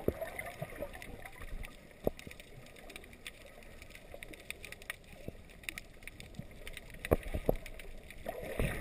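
Underwater ambience heard with the microphone submerged: a steady muffled water hiss with many scattered, irregular sharp clicks and crackles, a couple of stronger clicks near the end.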